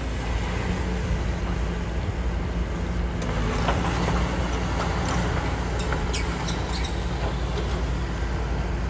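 Heavy diesel construction machinery, excavators and trucks, running steadily with a deep engine rumble, with a few short clanks in the middle.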